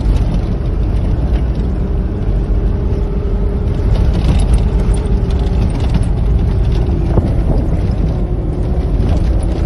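Car driving over snowy ground, heard from inside the cabin: a steady, loud low rumble of engine and tyres with a faint steady engine drone above it.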